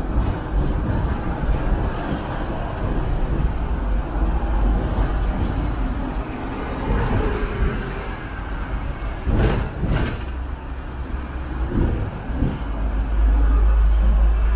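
Hong Kong electric double-decker tram running along its rails, heard from on board: a steady low rumble of wheels and running gear, with a few louder knocks about two-thirds of the way through.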